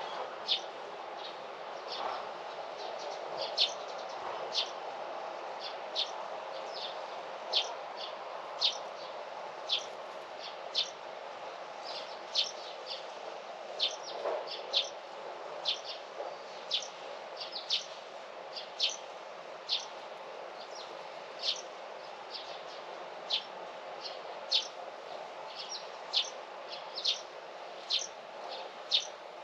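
A bird chirping over and over, short sharp high chirps about once or twice a second, over a steady background hush of outdoor noise.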